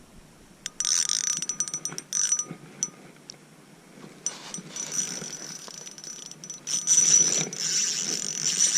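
Fishing reel drag peeling out as a big fish pulls line against it: two short spurts about a second and two seconds in, then a longer, louder run near the end.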